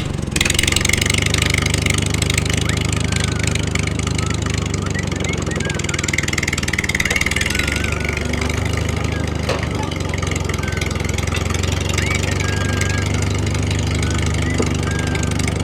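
A small engine running steadily at an even, low pitch, with a few faint short chirps above it.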